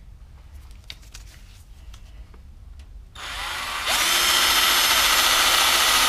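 Power drill with a nail-sized bit boring a hole into a rubber car tire. After a few faint handling clicks, the drill starts about three seconds in, rising in pitch as it spins up, then gets louder about a second later and runs steadily.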